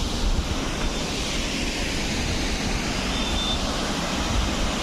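Loud, steady rush of water flowing at a dam, with wind buffeting the microphone as a low rumble.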